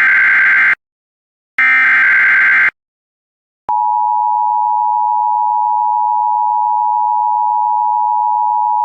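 Emergency Alert System SAME header: two bursts of rapid digital data tones, each about a second long with a short gap between. About 3.7 s in, a loud steady attention tone near 1 kHz begins and holds, signalling the start of a new warning.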